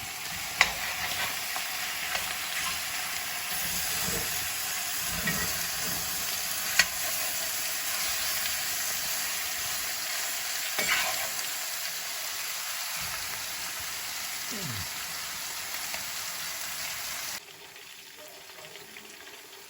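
Brisket fat trimmings sizzling as they render in a 12-inch cast iron skillet: a steady frying hiss with a few sharp grease pops. It turns quieter near the end.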